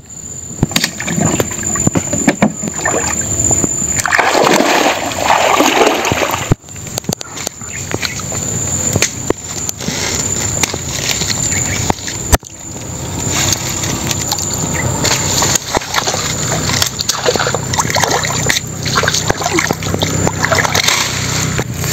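Water splashing and sloshing around a person wading and working a wire-mesh fish trap, with water streaming off as things are lifted out. There are two sharp knocks, about six and twelve seconds in.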